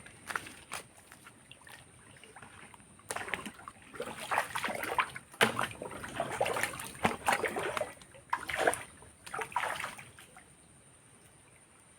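Water splashing and sloshing in irregular bursts, heaviest in the middle and dying down near the end.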